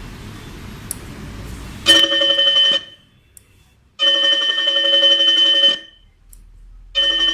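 Electronic gong bell sounding three times to mark the third period, as set on an automatic school bell timer. It gives a short first ring about two seconds in, then a longer second ring, and a third that starts near the end.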